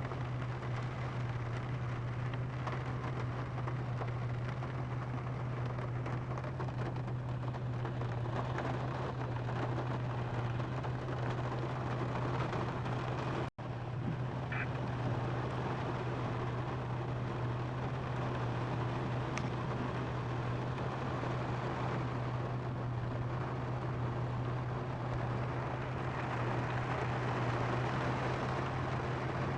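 Steady rain falling on a car, heard from inside the cabin over the car's constant low hum. The sound drops out for a moment about halfway through.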